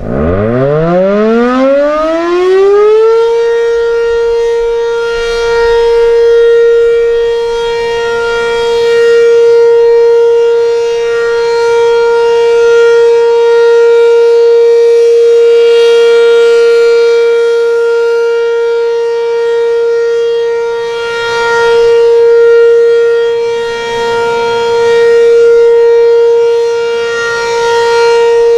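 B&N Mobil Directo BN52 outdoor warning siren winding up from silence over about three seconds to one steady pitch and holding it: the steady-tone Alert signal of a tornado siren test. Its loudness swells and fades every few seconds.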